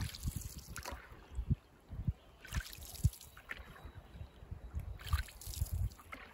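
Canoe paddles dipping and pulling through the water, a splash about every second or two, with short low thumps in between.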